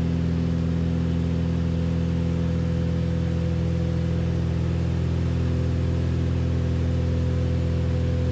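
Beechcraft Baron B55's twin six-cylinder piston engines and propellers running steadily in flight, heard inside the cabin as a constant low drone of several steady tones with a hiss above.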